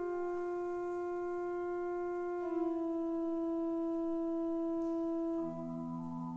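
Pipe organ holding slow sustained chords in an improvisation. The chord shifts about two and a half seconds in, and near the end the top note drops out as lower notes come in.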